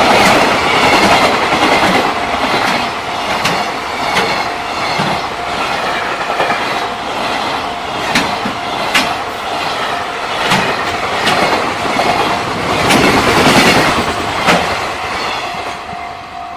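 Freight train passing close by, its wagon wheels clacking over rail joints with a dense rumbling roar. A level-crossing warning bell rings a steady tone under it.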